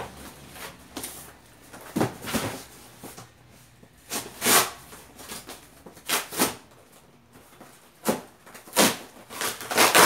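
Cardboard shipping boxes being handled and torn open: a string of short scrapes, rustles and tearing sounds of cardboard flaps, a second or two apart.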